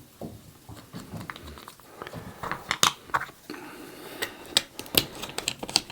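Close-up handling and rubbing of small hard plastic toy parts: a busy run of sharp clicks, taps and scratchy rubbing that grows denser about two seconds in.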